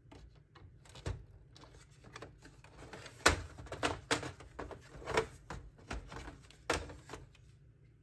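Hard plastic clicks, snaps and knocks as a Canon PIXMA TS5160 printer's power supply unit is pried loose and lifted out of its bay in the printer's plastic chassis. The clicks come irregularly, with the sharpest snap about three seconds in and another near the end.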